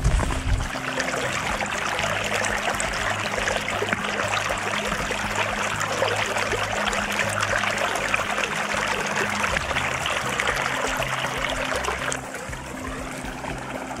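Steady rushing of running water, like a small stream, which turns quieter and thinner about twelve seconds in.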